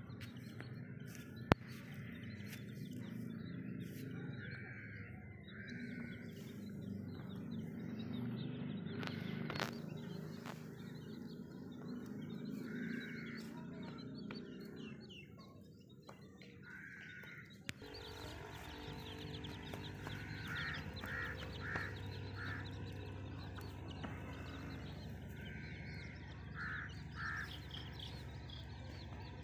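Baby chicks peeping: short calls, some in quick runs of three or four, over a steady low background rumble, with one sharp click about a second and a half in.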